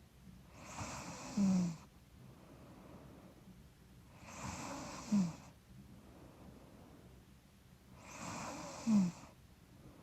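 A woman snoring in her sleep: three slow breaths about four seconds apart, each building up and ending in a short, louder snort whose pitch drops a little. She puts the snoring down to being a little stuffy.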